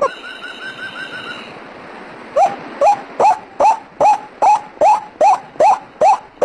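White-breasted waterhen (ruak-ruak) calls played as a bird lure: a quick run of short even notes for about a second and a half, then, after a brief lull, loud rising 'ruak' notes repeated steadily about two and a half times a second.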